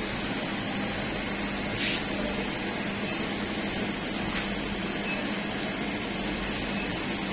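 Steady hum and hiss of a shop's background noise, with two faint clicks, about two and four and a half seconds in.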